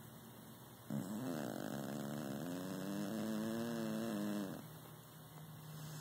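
A sleeping domestic cat snoring: one long snore that starts about a second in and lasts nearly four seconds, its pitch wavering at first and then holding steady before it stops.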